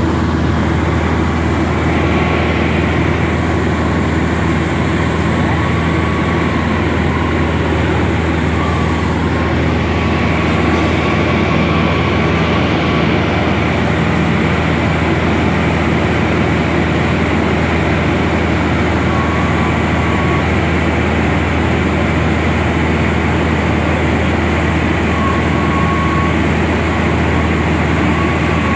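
A plane's engine and propeller droning steadily, heard from inside the cabin, with a deep hum and an even roar that does not change.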